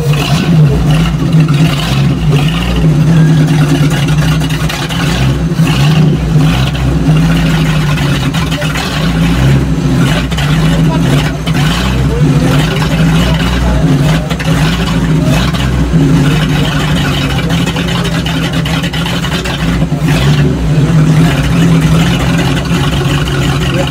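Custom hot rod's V8 engine idling just after start-up, with a few light revs that make the note waver up and down.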